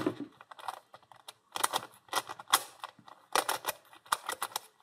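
Rubik's cube being twisted quickly to scramble it: plastic layers clicking and clacking in quick bursts with short pauses between.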